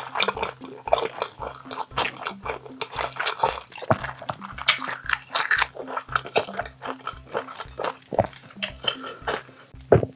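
Close-up chewing and biting on boiled baby octopus (jjukkumi), many irregular short wet mouth sounds, over background music with a steady beat.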